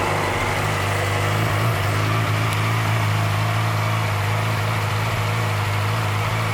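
2007 Yamaha YZF-R6's inline-four engine idling steadily, moments after being started.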